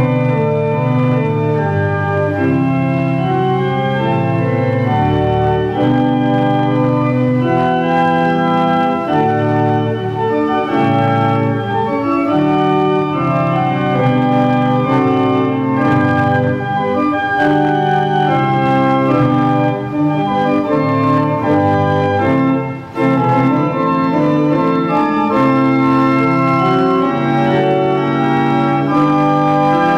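Church organ playing a slow piece of held chords over a moving bass line.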